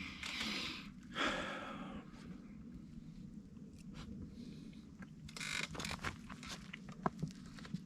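Someone eating: chewing, with two scraping rustles in the first two seconds and a run of short clicks and taps near the end.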